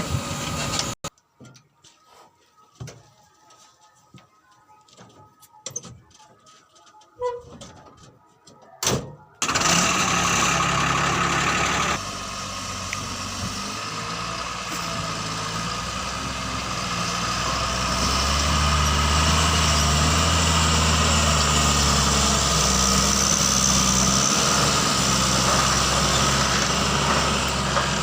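A heavy diesel engine on a backhoe loader or tipper truck, running steadily. It comes in after several quieter seconds of scattered clicks and knocks, and grows louder about two-thirds of the way through.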